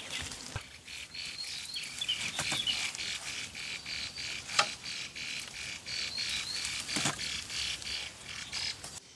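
Forest ambience: birds chirping over a steady high insect drone, with a few sharp clicks and knocks, the clearest about four and a half and seven seconds in.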